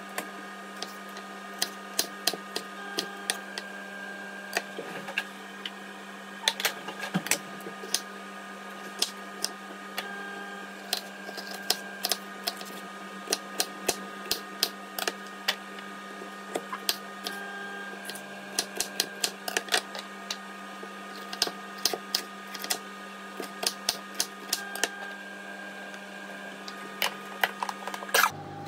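Kitchen knife chopping red bell peppers on a wooden cutting board: sharp knocks of the blade on the board, in quick irregular runs of several a second with short pauses between.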